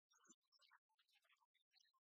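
Near silence, with only faint, choppy fragments of sound.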